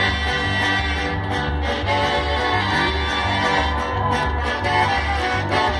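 Live orchestra playing a pasodoble medley for the carnival dancers, over a steady repeating bass beat.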